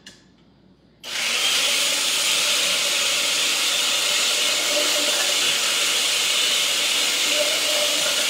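Countertop glass-jar blender switched on about a second in, its motor running steadily as it purées tomatillos.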